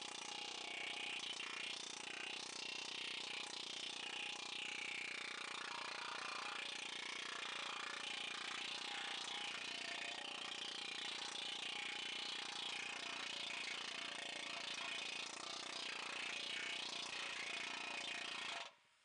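Planishing hammer running with rapid, steady blows on the sheet-metal fender fed between its dies, smoothing out the shrunk area of the ducktail. The hammering stops abruptly near the end.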